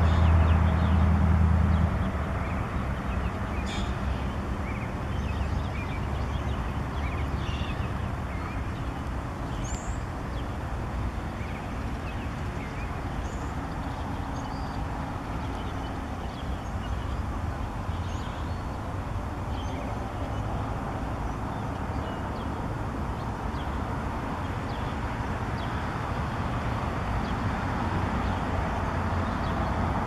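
Steady low rumble of distant traffic, with faint scattered bird chirps above it. A louder low engine hum cuts off about two seconds in.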